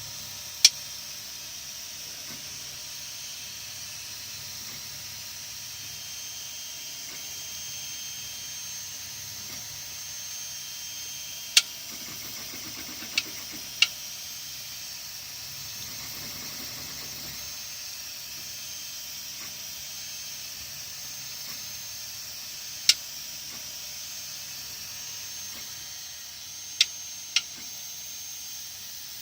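Sharp clicks, seven of them at irregular intervals (some a second or so apart, others ten seconds apart), over a steady hiss.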